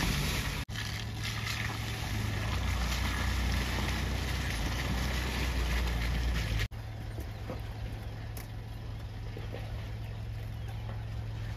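An off-road SUV's engine running steadily, a low even hum with noise over it. The sound drops out abruptly twice, about half a second in and about halfway through.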